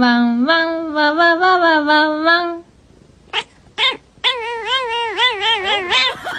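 Tabby cat yowling in long, drawn-out, sing-song calls: one long call that steps up in pitch partway through, a pause with two short sounds, then a second call whose pitch wobbles rapidly up and down like a warble.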